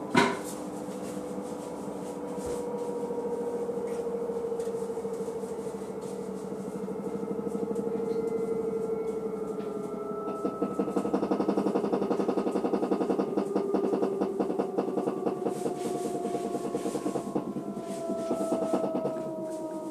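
Front-loading washing machine running, its motor whine gliding slowly in pitch as the drum changes speed. A sharp knock comes right at the start, and from about ten seconds in a fast rhythmic rubbing pulses under the whine.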